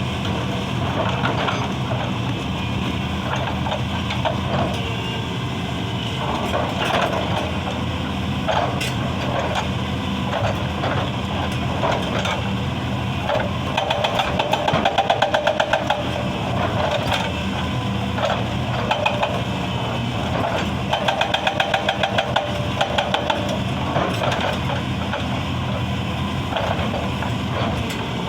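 Excavator's diesel engine running steadily under load, with scattered knocks of stone. Twice, for about two and a half seconds each, the hydraulic breaker hammer fires in a rapid run of strikes on rock.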